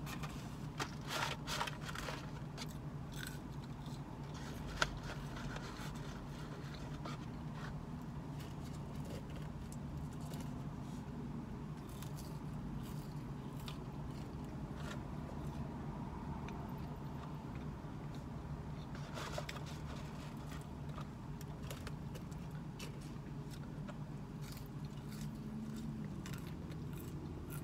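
A person eating McDonald's fries with her fingers: soft chewing, crunches and paper-packaging rustles with scattered small clicks, one sharper click about five seconds in, over a steady low hum.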